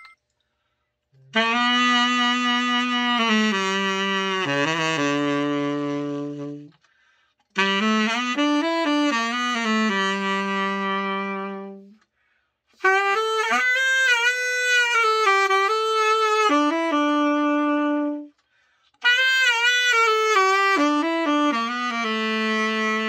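Yamaha YTS-380 tenor saxophone played in four slow melodic phrases with short breaks for breath between them, long held notes and some vibrato, as a play test after a full overhaul and re-setting.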